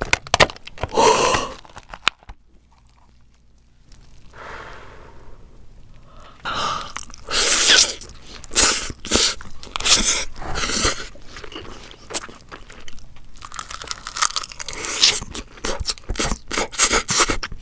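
King crab being eaten close to the microphone: repeated crunching and chewing, with a quiet pause of about two seconds near the start.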